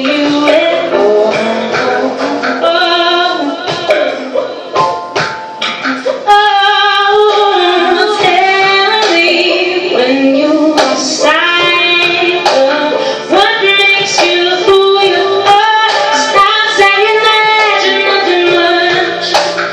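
A woman singing a song live, with amplified instrumental accompaniment.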